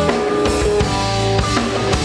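Band music: a drum kit playing a steady beat under bass and guitar, with held melodic notes on top.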